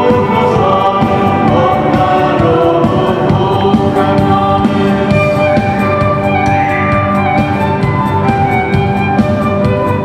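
A live band plays a Polish Christmas carol (kolęda), with group singing over the instruments.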